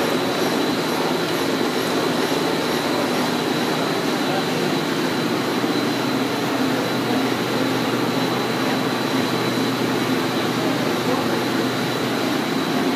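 Steady chemical-plant machinery noise: a continuous rumble and hiss with a thin, steady high whine over it.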